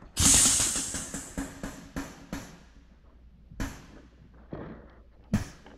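Air-operated grease pump on a grease drum: a loud burst of air hiss as it takes air, then a series of short sharp exhaust puffs from its strokes, coming quickly at first and then spacing out to about one a second.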